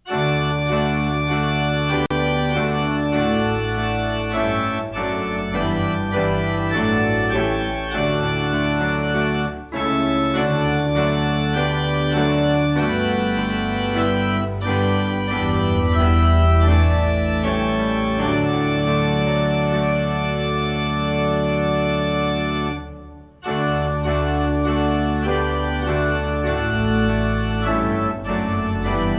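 Organ playing a hymn tune in full sustained chords, with two short breaks between phrases, about ten seconds in and again past twenty seconds.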